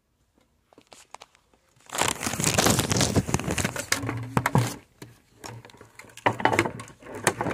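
Loud crinkling and rustling right at the phone's microphone, in two long stretches starting about two seconds in, after a few faint clicks.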